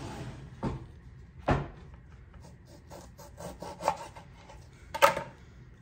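A lime rolled under the hand on a cutting board, a soft rubbing sound, broken by a few knocks on the board, the loudest about one and a half seconds in and again about five seconds in.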